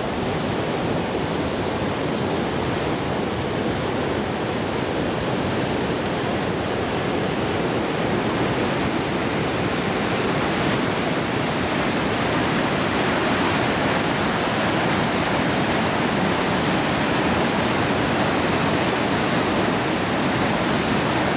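Rushing whitewater of river rapids: a steady, dense roar of water that grows a little louder in the second half.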